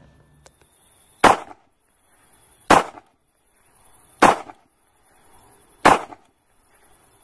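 Four sharp bangs about a second and a half apart, each led in by a short swelling rush and trailing a brief ring, over a steady hiss: a dramatic sound effect.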